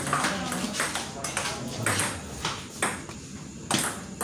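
Celluloid-type table tennis ball clicking on the table and off rubber paddles in a rally: a string of sharp, separate taps, coming about every half second in the second half.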